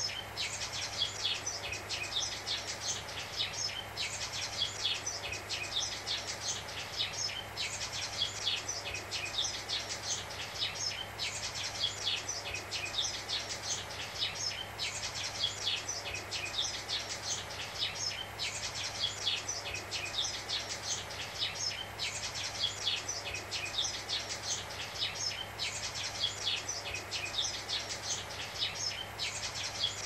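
Sparrows chirping in quick clusters that come back about every three and a half seconds, over the steady hiss of analog TV static (white noise).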